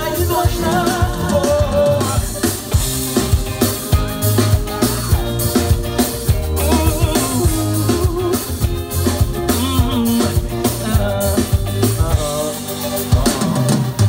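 Live pop band playing a steady drum-kit beat with bass and melodic parts.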